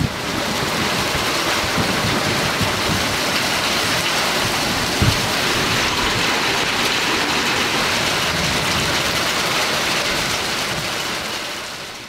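Heavy rain pouring steadily, an even hiss of falling water that fades out near the end.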